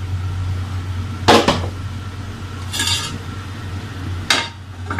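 Metal cookware moved on a gas stovetop: a metal pot lifted off the burner and a cast-iron dosa tawa set down in its place. There are three clanks, about a second and a half apart, over a steady low hum.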